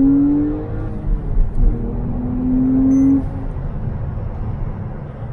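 Porsche 997 Carrera S's 3.8-litre flat-six accelerating hard, heard from inside the cabin with the windows closed. The engine note rises, dips with a couple of low thumps at an upshift about a second in, rises again, then drops off suddenly about three seconds in.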